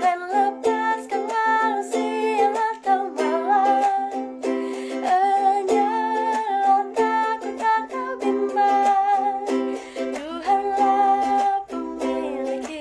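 A woman singing a slow worship song with held, wavering notes over strummed string accompaniment, in a small room.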